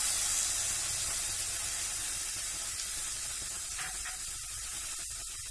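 Tamarind extract sizzling and hissing as it hits a hot pan of sautéed okra, onion and tomato; the sizzle slowly dies down.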